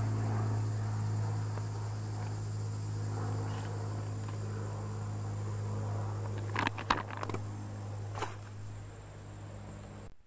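A steady low droning hum, even in pitch, that sounds like a drone. It eases slightly near the end and then cuts off suddenly. A few short rustles of the foil food pouch come about seven and eight seconds in.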